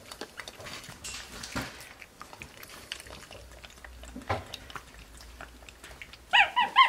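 Black-capped capuchin monkey drinking from a plastic water bottle, with soft wet clicks and smacks from its lips and tongue. Near the end it gives a quick run of four or five short, high chirping squeaks.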